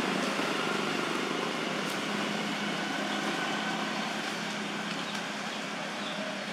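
Steady outdoor background hum with a faint low drone holding one pitch, unchanged in level throughout.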